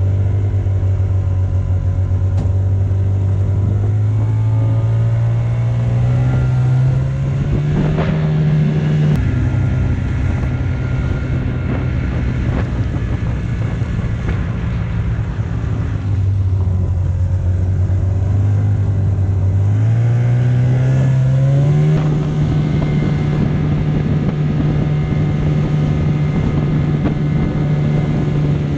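Snowmobile engine running under way. Its pitch climbs gradually, drops back about nine seconds in, dips lower around sixteen seconds, then climbs again and holds steady through the last several seconds.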